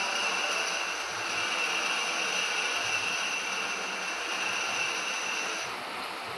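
Lathe running during a shaft-turning cut: steady machine noise with a high, steady whine from the cut, the highest part of the whine dropping away near the end.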